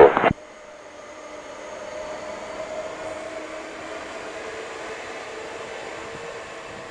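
Airbus A330-243's twin Rolls-Royce Trent 700 turbofans spooling up for takeoff: a steady rushing jet noise with a faint whine that builds over the first two seconds and then holds.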